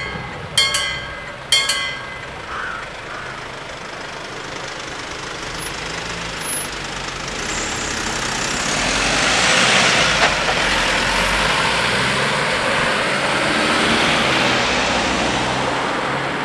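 Level crossing bells striking about once a second, falling silent about two seconds in. Road traffic then moves over the crossing, cars and a van driving across with tyre and engine noise that swells to a peak about ten seconds in.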